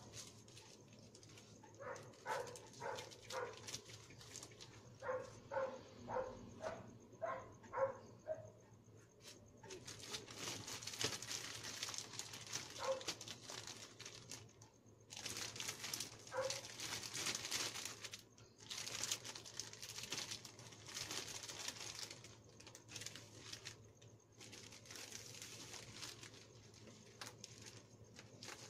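Plastic snack packets crinkling and rustling as they are handled and hung on a store display, in long stretches over the second half. Earlier, a run of short, repeated high calls from a small animal, about two or three a second.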